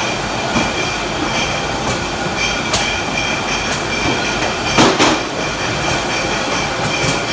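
Packaging-line conveyor machinery running steadily, with a high whine and a rattling clatter from its rollers and belts. A few sharp knocks from the carton handling, the loudest about five seconds in.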